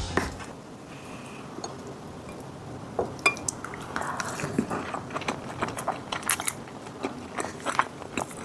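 Close-miked mukbang eating sounds: after a few quiet seconds, a sharp click about three seconds in, then crisp crackly crunching and chewing of a mouthful.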